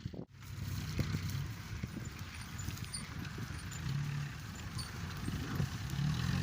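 Excavator's diesel engine running steadily, with a few light knocks over it. The sound cuts out briefly just after the start, then picks up again.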